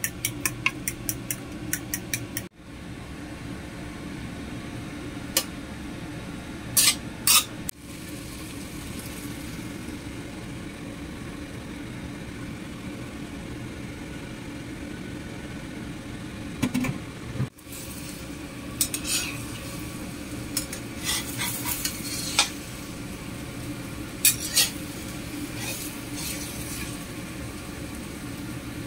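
Eggs whisked in a ceramic bowl with a metal spoon, a quick run of clicks against the bowl, then sliced cucumber and beaten egg sizzling in a stainless steel wok, with a metal spatula knocking and scraping against the pan now and then.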